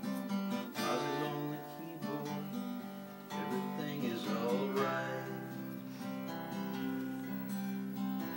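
Acoustic guitar strummed and picked, playing a continuous passage of a song live.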